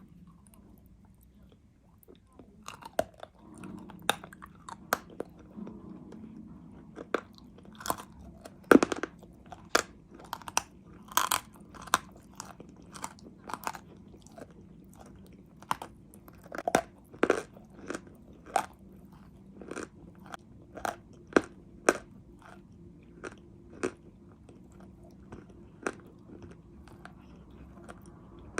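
Crunchy edible clay (sweet chalk) being bitten and chewed close to the microphone: a long series of sharp, irregular crunches and snaps, about one or two a second.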